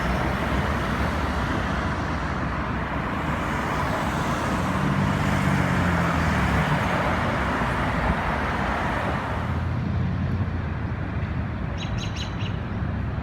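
Street traffic: cars passing with steady tyre and engine noise, and a heavier engine droning through the middle. The traffic eases near the end, where a few bird chirps come through.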